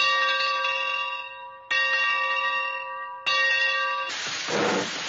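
A large bell struck three times, about a second and a half apart, each stroke ringing out with many overtones and fading. About four seconds in, a loud rushing noise with low rumbling swells takes over.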